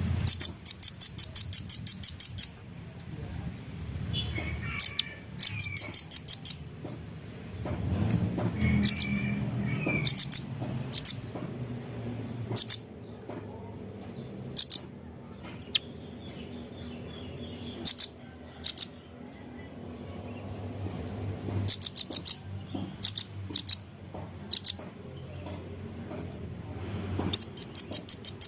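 Velvet-fronted nuthatch calling: rapid series of sharp, high chips, each burst lasting a second or two, with single chips between.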